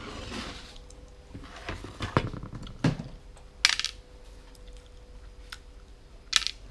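Four sharp clinks of small hard bits dropped onto a ceramic plate, the last two brightest, among rustling and chewing noise from eating by hand.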